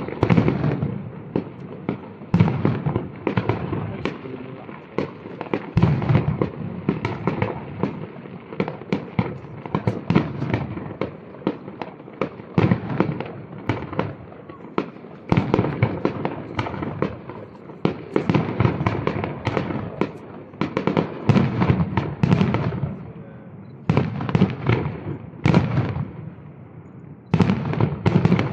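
Aerial firework shells bursting in quick succession: a dense run of sharp bangs and crackles, several a second, with a few short lulls near the end.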